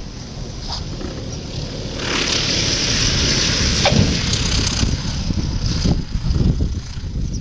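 Piper PA-28 Archer III's engine and propeller passing close by on its landing, swelling in from about two seconds in and loudest to about five seconds. It is heard over heavy wind buffeting the microphone.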